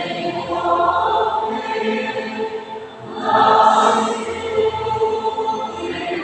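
Music with choral singing: several voices holding sustained notes that change pitch every second or so, swelling louder about halfway through.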